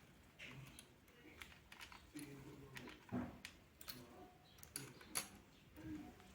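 Faint, scattered clicks and taps at an uneven pace, with a few louder ones a little past a second in and around three and five seconds in.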